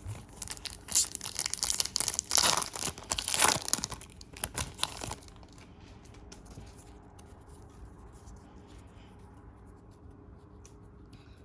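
A foil trading-card pack wrapper being torn open and crinkled by hand for about five seconds, then only faint rustling as the cards are handled.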